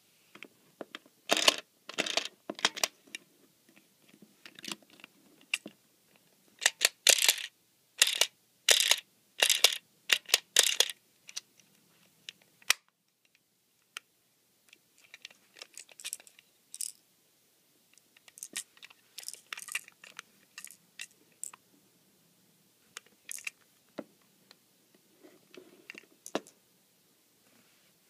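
Small plastic toy washing machine being handled and turned over: bursts of clicking and rattling plastic, dense and loudest for the first ten seconds or so, then sparser and quieter after a short pause.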